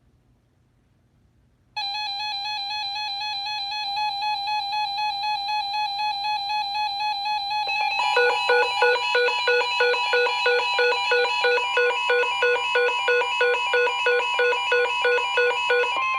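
An electronic tune of held tones pulsing about twice a second starts about two seconds in and grows fuller about halfway. Under it a steady high tone sets in, the NOAA Weather Radio warning alarm tone near 1050 Hz, which is left on its own at the very end.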